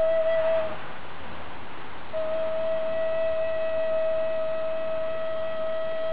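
Wooden flute holding a long steady note that breaks off with a breathy rush of air a little under a second in. After a pause of over a second, it takes up the same note again and holds it steadily.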